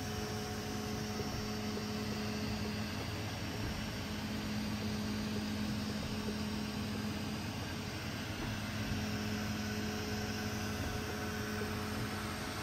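Snapmaker 2.0 A350T 3D printer running: a steady fan whir with a low motor hum that drops out and comes back a few times.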